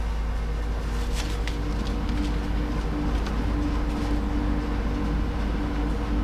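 Steady machine hum with a second, higher tone joining about two seconds in, and a few light clicks from parts being handled near the start.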